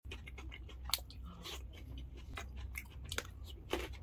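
Close-miked crunching and chewing as crisp dahi puri shells are bitten and eaten: irregular sharp crunches, the loudest a little before a second in, just after three seconds and near the end. A steady low hum lies underneath.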